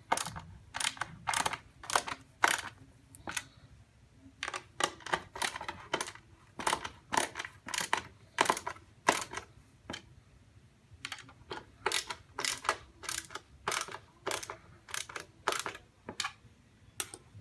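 Screws being driven by hand into the cabinet's plastic brackets: a long run of sharp, irregular clicks, about two or three a second, as the screwdriver is turned and reset.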